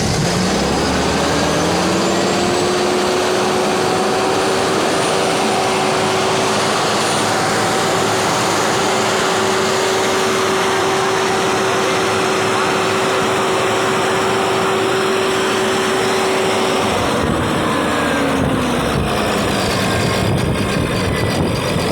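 Massey Ferguson 7614 tractor's diesel engine running after a hard start. It speeds up over the first few seconds, holds a steady higher speed, then falls back to idle near the end.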